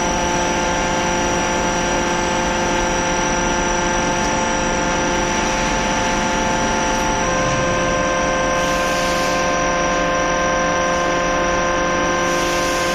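Hydraulic open-die forging press running: a steady hum with several steady tones from its pumps and motors. About seven seconds in the tones change pitch, and a hiss comes twice near the end.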